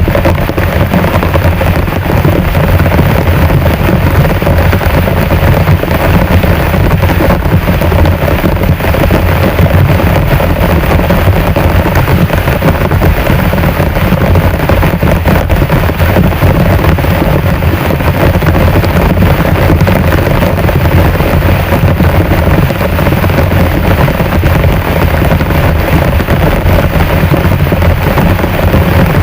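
Heavy rain pouring down steadily, a loud, even rush of water with a deep low rumble.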